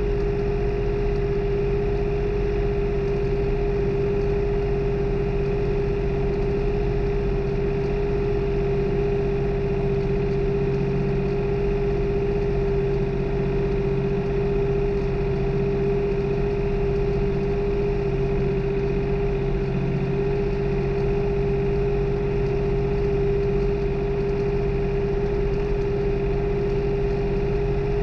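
New Holland farm tractor's diesel engine running at a constant speed while tilling, a steady hum with one strong even tone that does not change.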